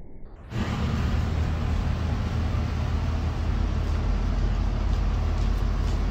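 Steady outdoor background noise with a heavy low rumble that cuts in suddenly about half a second in.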